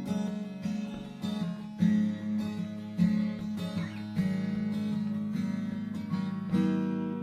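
Acoustic guitar music, strummed and plucked chords with a steady pulse.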